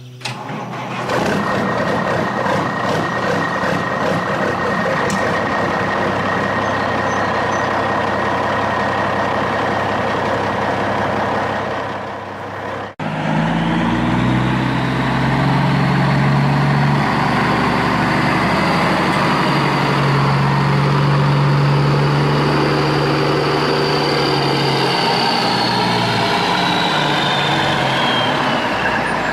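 Radio-controlled model truck running, with a truck-engine sound and a high whine. The sound cuts off suddenly about 13 seconds in and starts again with a steadier engine note; the whine falls in pitch near the end.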